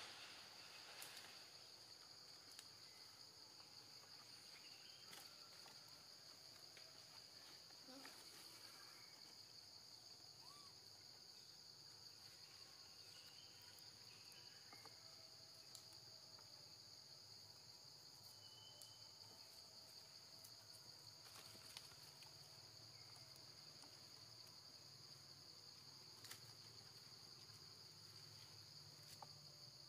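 Faint, steady, high-pitched drone of an insect chorus that never breaks, with a few soft clicks now and then.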